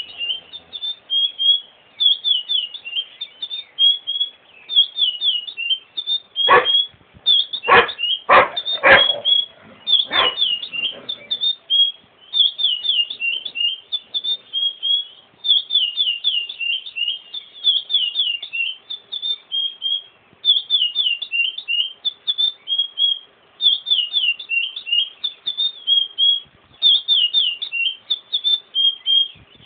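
Curió (chestnut-bellied seed-finch) singing, repeating short clear whistled phrases again and again. About a quarter of the way in, six loud short sounds break in over about four seconds.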